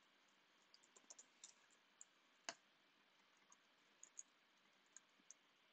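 Faint, irregular clicks of a computer keyboard being typed on, with one louder click about two and a half seconds in.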